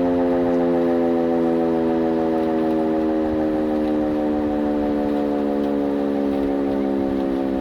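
W.S. Darley Champion electromechanical fire siren winding down from a short growl test, its pitch sliding slowly lower. Wind rumbles on the microphone underneath.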